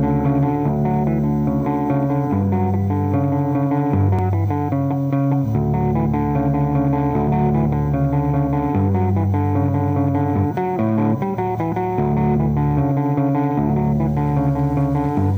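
Instrumental guitar music without vocals: ringing chords over sustained low notes, the chords changing every second or two.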